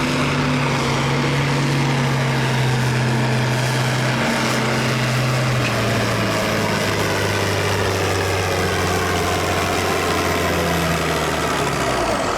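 Farm stock pulling tractor's diesel engine idling steadily; its pitch settles a little lower about halfway through and picks up again near the end.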